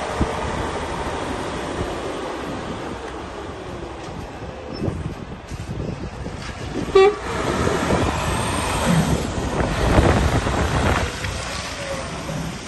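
Mercedes-Benz Actros 2545 tractor unit's straight-six diesel pulling away and driving off, with wind rumbling on the microphone. A single short horn toot sounds about seven seconds in.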